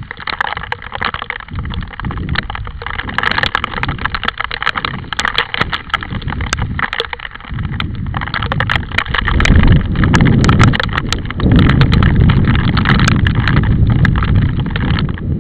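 Heavy rain and wind on the microphone: a dense crackle of ticks over a steady hiss, with low wind buffeting that builds about eight seconds in and stays strongest to near the end.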